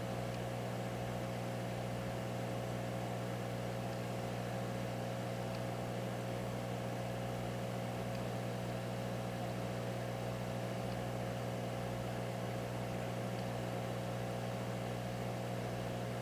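Steady hum of a hot air rework station's blower running while the replacement backlight filters are reflowed, with a few fixed tones and no change in pitch or level.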